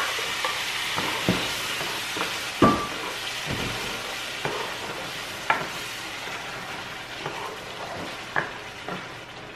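Rice frying in a pan with blended tomato and onion just poured in, sizzling steadily and fading gradually as it is stirred. A spoon knocks against the pan a few times, loudest about three seconds in.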